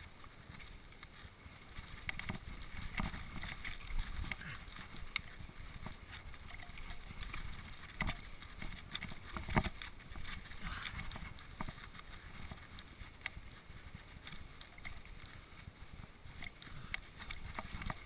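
Mountain bike rolling over a dirt singletrack: a low rumble of tyres on the trail with irregular clicks and knocks as the bike rattles over roots and bumps.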